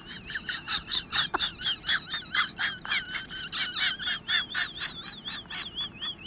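Rapid, evenly repeated high chirping calls, about five a second, with a warbling whistle-like tone over them in the second half, from an animal such as a bird or frog.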